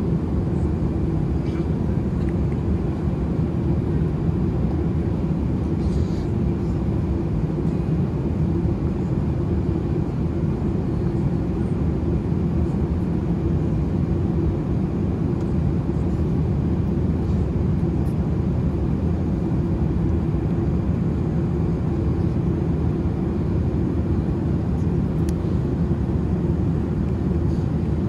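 Steady cabin noise of an Airbus A380 in flight: a low, even rumble of the four engines and airflow heard inside the passenger cabin.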